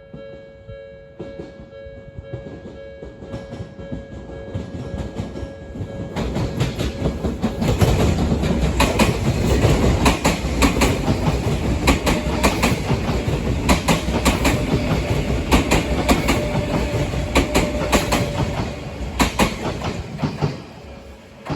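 Odakyu Odawara Line electric train approaching and passing over a level crossing, its wheels clattering over the rail joints in quick clicks. The rumble builds up, is loudest through the middle and fades near the end. At the start the crossing's electronic warning bell rings steadily in two tones.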